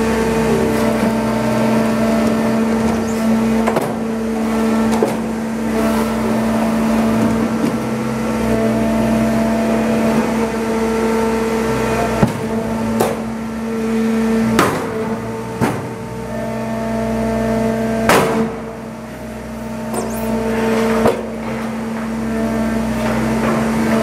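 Automatic continuous-feed scrap metal baler running, its hydraulic power unit giving a steady hum. Sharp metal knocks come several times in the second half as it works.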